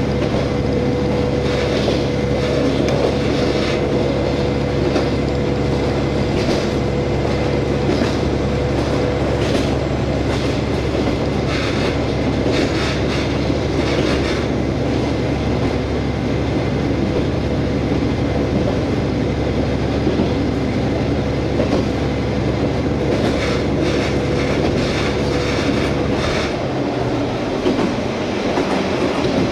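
KiHa 47 diesel railcar running along the line, heard from inside the car: the underfloor diesel engine drones steadily while the wheels clatter over rail joints in clusters every few seconds. The engine's low drone eases off near the end.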